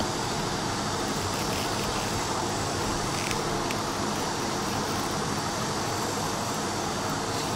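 Steady rushing background noise, even and unchanging, with two faint ticks about three and a half seconds in.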